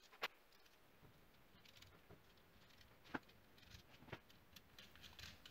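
Faint clicks of metal washers and nuts being put onto the threaded rods of a bulkhead plate, with the sharpest click about a quarter second in and others about three and four seconds in, over near silence.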